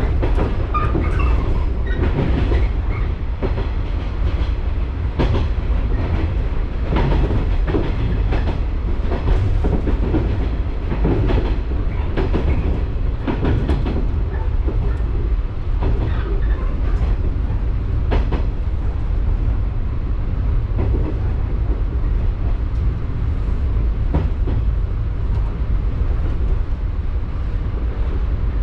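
Electric local train running along the line, heard from inside the rear car: a steady low rumble with the wheels clicking over rail joints every second or so.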